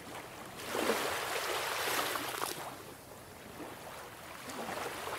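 Sea water washing in swells, a noisy rush that builds about a second in and eases off past the middle.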